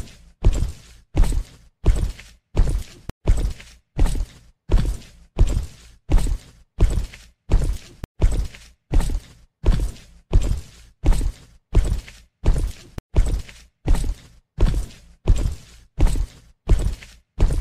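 Footstep sound effect on a loop: heavy, evenly spaced steps, about three every two seconds, each a sharp thud that dies away quickly.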